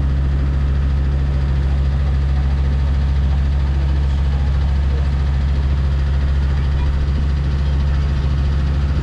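Passenger boat's engine running steadily: a loud, even, low hum that does not change.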